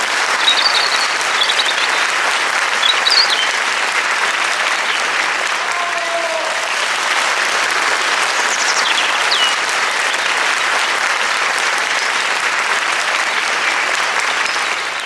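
Crowd applause, a dense steady clapping that dies away at the end, with a few faint bird chirps over it.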